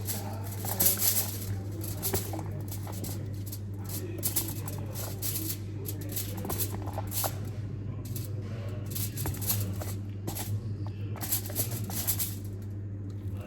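Slime being kneaded and stretched by hand: a run of short, irregular sticky clicks and crackles, over a steady low hum.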